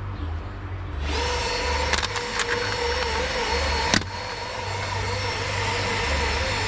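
Electric drill starting about a second in and running steadily, with a few sharp clicks, the loudest about four seconds in. It is spinning a dull bit against a graphite exhaust gasket that it can't cut through.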